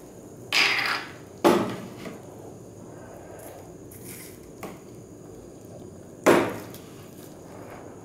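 A plastic lab bottle and its screw cap being handled on a bench: a brief scrape, then a sharp knock about a second and a half in and another about six seconds in.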